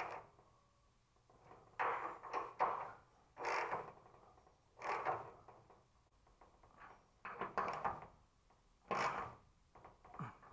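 Hand tool turning the bolts on a steel door hinge, heard as a series of short rasping bursts about every second or two, with a few sharp clicks between them.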